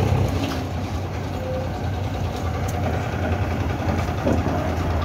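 Large diesel dump truck's engine idling steadily, a low, even running sound.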